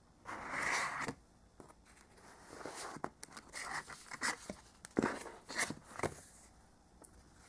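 Paper and cardboard being handled: a rustle of pages about half a second in, the loudest part, then a series of short scrapes and taps as a softcover book is handled in its cardboard box.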